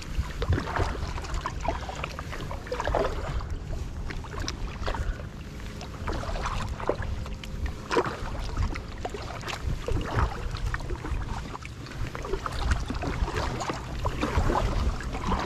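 Kayak on the water: irregular splashing from paddle strokes and water sloshing against the hull, over a steady low rumble.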